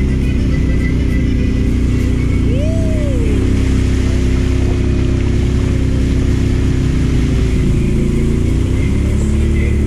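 ATV engine running steadily while riding through mud, with one quick rev up and back down about two and a half seconds in.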